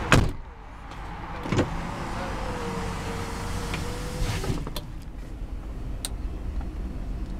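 Power window on a 1994 Cadillac Fleetwood Brougham's driver's door: a sharp click, then the window motor running with a steady whine for about two seconds before stopping with a click. The 5.7-litre V8 idles underneath as a low hum.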